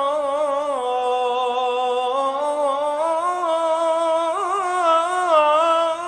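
A nasheed-style vocal intro: one voice sings a slow wordless melody of long held notes that glide and waver, with no instruments.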